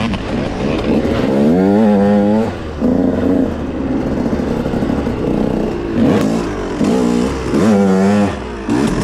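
Dirt bike engines revving as the bikes ride: two sharp rises in pitch, about a second and a half in and again near the end, with the engine running more steadily between.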